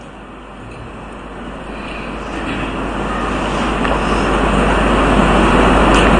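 A steady rushing noise with a low hum beneath it, growing gradually louder throughout.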